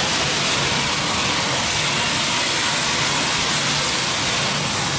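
Gas turbine engine of a turbine-powered modified pulling tractor running while the tractor stands at the end of its pull, a steady, even hiss.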